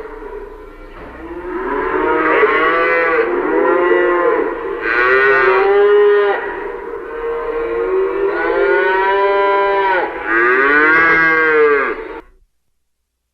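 Cattle mooing: a run of long, drawn-out moos, one after another and sometimes overlapping, each rising and then falling in pitch. The calls cut off abruptly into silence near the end.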